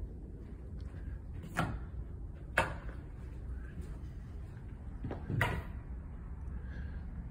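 Three short, sharp knocks, the first two about a second apart and the third after a longer gap, over a steady low rumble of room noise.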